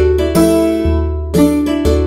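Background music: a keyboard tune in a steady rhythm, with notes changing about every half second over a bass line.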